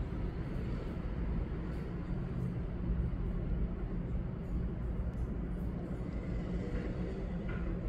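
Steady low rumble with a faint hum, like machine or traffic noise, running unbroken underneath.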